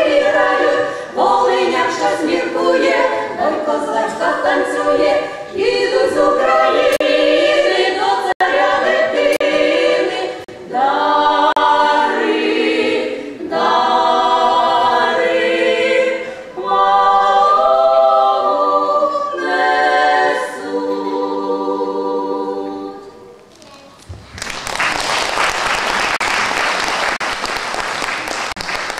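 Women's folk vocal ensemble singing a Ukrainian koliadka (Christmas carol) unaccompanied, in phrases of held chords. The song ends about 23 seconds in and an audience breaks into applause.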